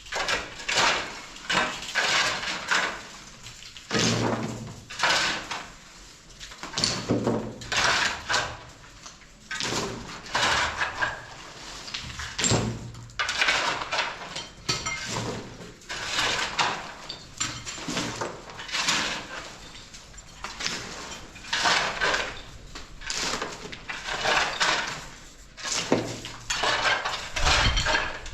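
Repeated clattering knocks and scrapes in short bursts, about one a second, like hard tools worked against a hard surface.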